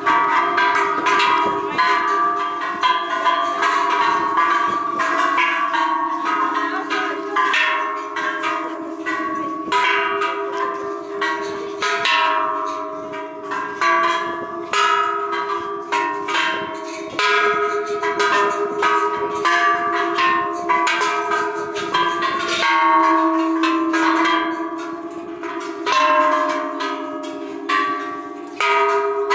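A row of large hanging temple bells rung by hand, their clappers pulled by cloth tails, one strike after another. The strikes come close together and overlap, so each bell's ringing tone runs into the next.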